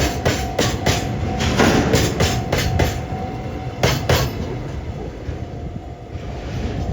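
Freight train of Taki tank wagons rolling over rail joints. For about four seconds there is a run of clickety-clack, the wheelsets striking the joints in quick pairs. The clicks then thin out to a steady rolling rumble.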